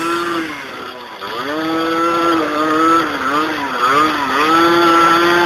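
Two-stroke dirt bike engine revving up and down while being ridden. The revs sag briefly about a second in, then pick up again and waver.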